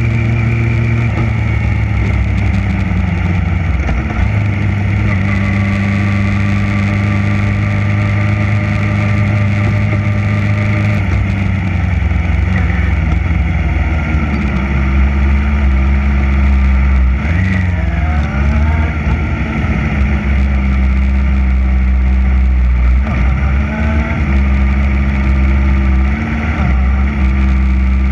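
Sport motorcycle engine idling steadily close to the microphone, with a few short throttle blips in the second half.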